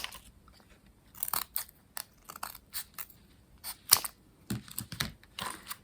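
Corrugated card being cut by hand: a string of short, irregular cutting sounds with brief pauses between them.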